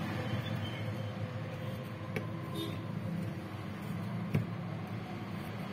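Steady low background rumble with two light, sharp clicks of a metal pick against the Samsung Galaxy A7's frame as old display adhesive is scraped away.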